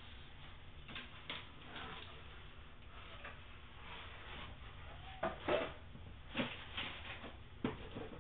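Packaging and the aquarium's parts being handled: rubbing with scattered short knocks, the loudest a cluster about five and a half seconds in.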